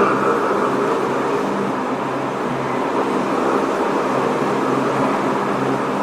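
Tokyo Metro 07 series electric train running, heard from inside the passenger car: a steady rumble of wheels on rail with a constant low hum, at even speed.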